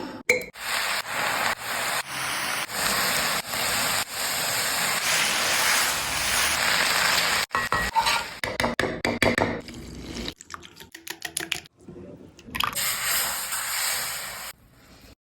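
Momos frying in hot oil, sizzling steadily, with several abrupt cuts. About halfway through the sizzle thins into scattered crackling pops, then a short spell of steady sizzling returns before it stops shortly before the end.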